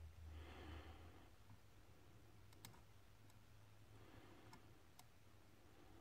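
Faint, scattered small metallic clicks of a hook pick working the pins of a Steel Pinnings challenge lock cylinder under light tension, probing for the binding pin; about four ticks spread over a few seconds, with a soft breath near the start.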